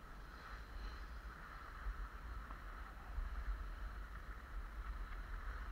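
Skis sliding over snow, a steady scraping hiss, with wind rumbling on the microphone.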